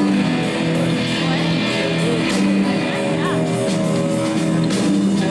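A live rock band playing on stage: electric guitars over a drum kit, held chords at a steady level.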